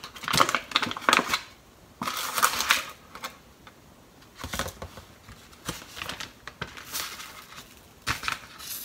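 Crinkling of a foil seasoning packet and a plastic zip bag, with small scrapes and clicks of a spoon as chicken stock powder is scooped out and tipped in. The noises come in short irregular bursts with quiet gaps between them.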